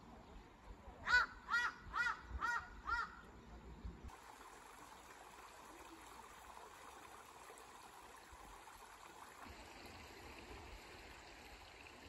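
A crow cawing five times in quick succession, about two calls a second, each call rising and falling in pitch. After that, a faint steady trickle of a shallow stream running over stones.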